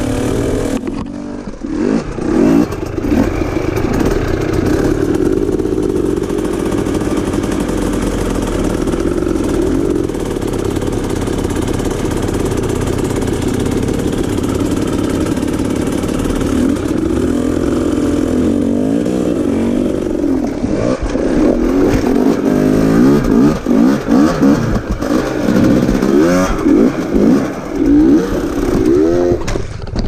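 Dirt bike engine under load at low speed, its revs rising and falling as it crawls up a rocky climb. In the last third the throttle is blipped in short, choppy bursts in quick succession, with some clattering.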